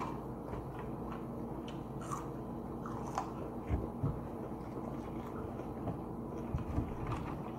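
People chewing and biting fried food, with scattered soft crunches and clicks over a faint steady hum.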